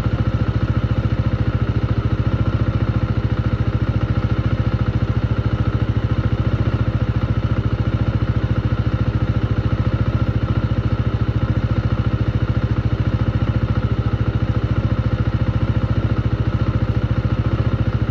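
Motorcycle engine running steadily as the bike is ridden, an even, unchanging note with no revving or gear change.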